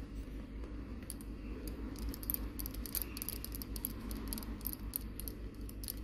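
Many small, irregular metallic clicks and ticks from a precision screwdriver turning a tiny screw into a laptop's hinge cover bracket, over a low steady hum.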